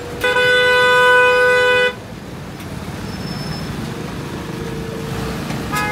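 A vehicle horn blasts once for about a second and a half, with engines running underneath. A second, shorter horn blast begins near the end.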